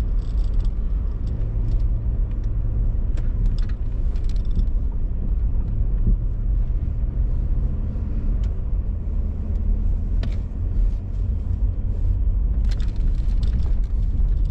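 Vehicle driving slowly, a steady low engine and road rumble, with a few brief rattles or knocks.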